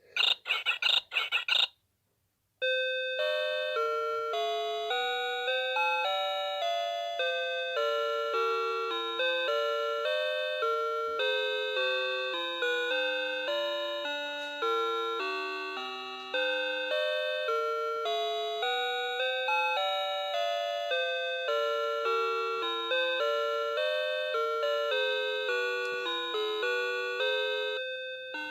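Noah Precision Fruity Melody alarm clock sounding its alarm: a run of quick electronic beeps, a short pause about two seconds in, then a simple electronic chime melody played note by note for the rest of the time.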